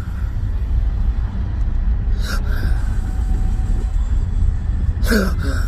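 Two sharp involuntary hiccups about three seconds apart, each a brief gulp of breath with a falling voice, from a man with chronic intractable hiccups. Under them runs the steady low rumble of a car.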